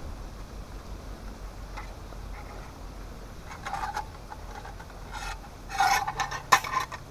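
A few short rubbing, scraping sounds in the second half, the loudest near the end, over a low steady background hiss.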